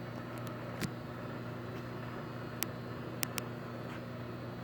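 Steady low electrical hum from a running Lucifer electric heat-treating furnace, with four sharp ticks scattered through it.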